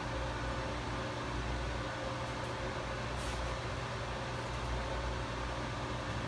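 Steady electrical hum with a fan-like hiss from equipment running in the room, and a few faint light clicks from handling wiring or tools.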